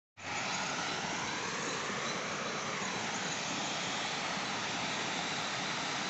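Stream water rushing over rocks and spilling across a low concrete causeway: a steady, unbroken rushing.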